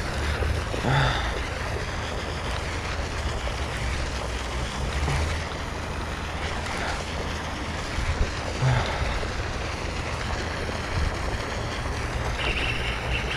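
Steady wind rumble on the camera microphone, with a few brief louder noises over it: one about a second in and one near the nine-second mark.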